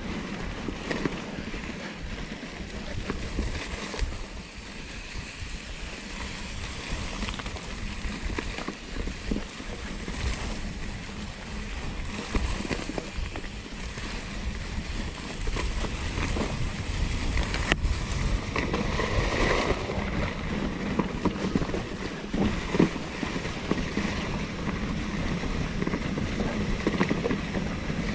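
Mountain bike, a 2016 Norco Torrent plus hardtail, riding a dirt trail: a steady rumble of tyres and wind on the microphone, with small rattles and clicks from the bike over bumps.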